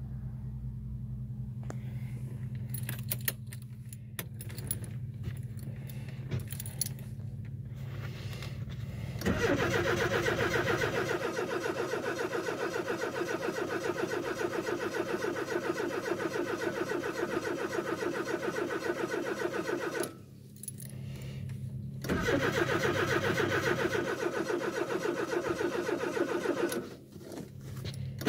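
A car's starter motor cranking a cold engine in two long, rhythmic bursts: about ten seconds, then after a short pause about five more, without the engine settling into an idle. Before the cranking come small clicks and jangles of keys or wiring over a steady low hum, and a brief louder burst comes right at the end.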